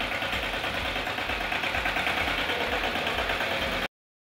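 Engine of a small Shujaa tractor running as it is driven, with an even pulsing beat. The sound cuts off abruptly about four seconds in.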